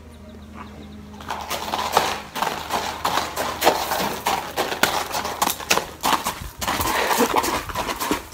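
Horse's hooves clopping on a hard paved path as it is ridden, an irregular run of knocks starting about a second in.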